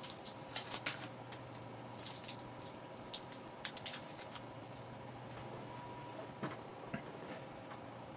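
Small plastic and metal parts of a toy RC helicopter being handled and pried apart: light clicks and ticks, in a quick cluster about two seconds in and another from about three to four and a half seconds, with a few scattered ones later.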